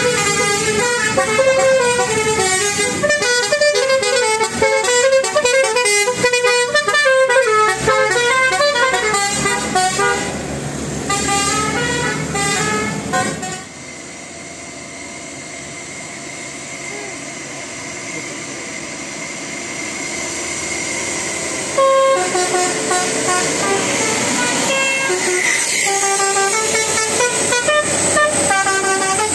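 Bus telolet horn: a bus's set of multi-tone air horns playing a fast, jumping melody of short notes. About halfway it drops away to a quieter steady hum, and the horn notes start up again suddenly some eight seconds later.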